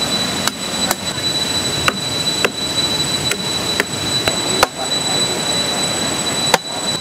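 A large knife chopping into the end of a fresh green bamboo tube, about eight sharp chops at an uneven pace, with a thin steady high tone underneath.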